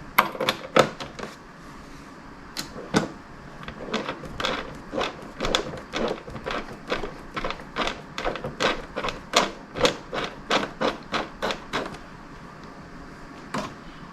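Long bolts and flat washers clicking and tapping against an aluminium luggage rack and a plastic trunk lid as they are set in by hand. The clicks are short and irregular: two loud ones at the start, then about two a second through the middle.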